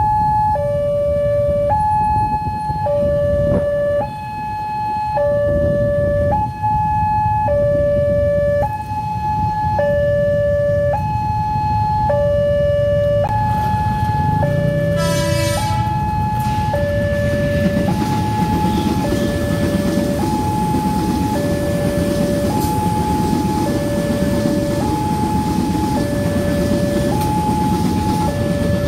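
Level-crossing warning alarm sounding a two-tone electronic signal that alternates between a higher and a lower note about once a second. Past the middle, after a brief shrill sound, an electric commuter train passes over the crossing with a steady rumble of wheels on rail under the alarm.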